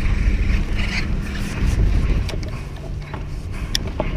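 Wind rumbling on the microphone aboard a small boat on choppy water, with a faint steady hum underneath. Scattered small clicks and ticks come in the second half.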